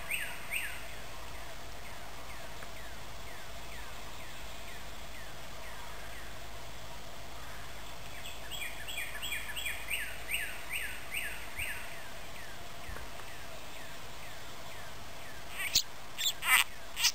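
Outdoor marsh ambience: a steady faint hum, with two bouts of short, high, falling chirps repeated about three times a second, one right at the start and one about halfway through. A few sharp knocks come near the end.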